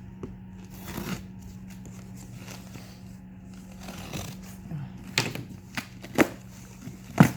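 A cardboard box of ARP fasteners being opened and its contents handled: rustling, with a few sharp knocks. The loudest knock comes near the end, and a steady low hum runs underneath.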